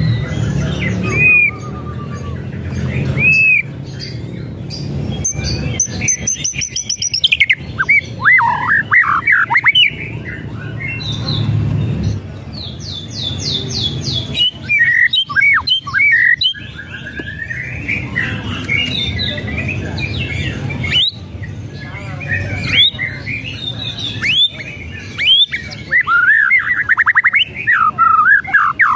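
White-rumped shama singing a varied song of loud whistles, fast trills and sweeping notes, broken by sharp rattling clicks (kretekan).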